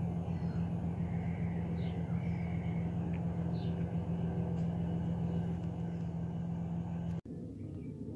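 Steady low rumble of distant engines with a constant hum under it and a few faint high chirps; it cuts out abruptly about seven seconds in and comes back quieter.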